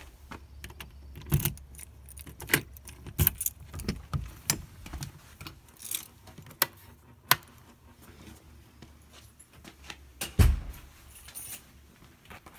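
Irregular sharp metallic clinks and knocks, about a dozen of them, with the loudest near the end, over a low steady hum.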